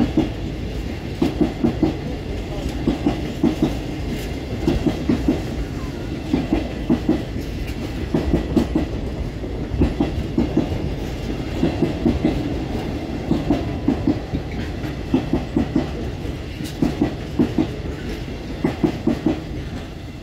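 Container freight train's flat wagons rolling past, their wheels clattering over the track joints and pointwork in repeated groups of knocks roughly every one to two seconds over a steady rumble.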